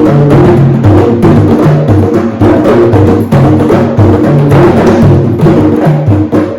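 Hand drums played in a fast, steady rhythm, with deep tones alternating between a few pitches under sharper slaps and taps.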